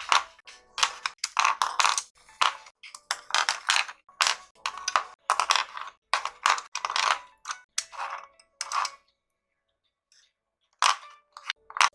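Colored pencils clicking and clattering against each other and a hard surface as they are handled and sorted, a quick run of short knocks, some with a brief ring, with a pause of about two seconds near the end.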